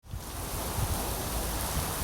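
Storm rain falling steadily: an even hiss with a low rumble underneath, fading in quickly at the very start.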